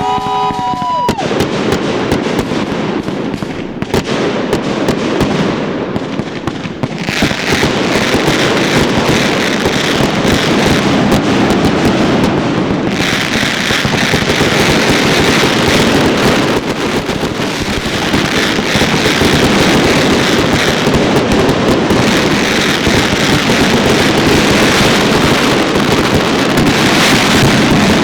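Fireworks going off in a rapid, continuous barrage of bursts and crackling, growing denser after the first several seconds, with a short whistle near the start.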